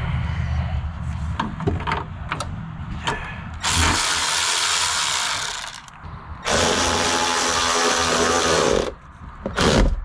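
Cordless ratchet running in two spells of about two seconds each, driving in the 10mm bolts of a Ford Transit's new door check assembly, with a short burst near the end. A few sharp clicks come first.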